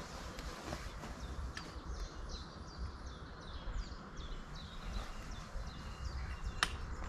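A small songbird singing a quick series of short, falling chirps over a low, steady rumble; a single sharp click sounds near the end.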